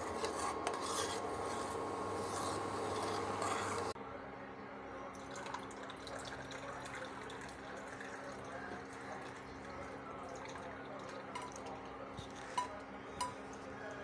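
A metal spoon stirring and scraping a hot herbal decoction in a steel saucepan, over a steady hum from the induction cooktop. About four seconds in it changes to a quieter trickle of the liquid poured through a tea strainer into a glass cup, with a couple of light clinks near the end.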